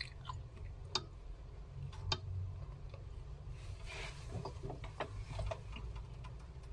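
Quiet room tone: a low steady hum with a few faint scattered clicks and light knocks, handling noise from a phone and a bottle being held and moved.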